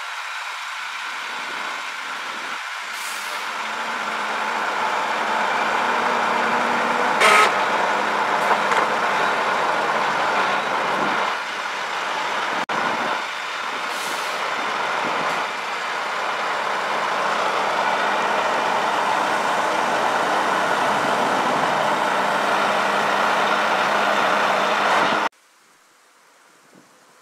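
Tatra 8x8 truck's diesel engine running steadily at working speed while its tree spade lifts a root ball, with a few short air-release hisses, the loudest about seven seconds in. The sound drops off abruptly near the end to faint outdoor noise.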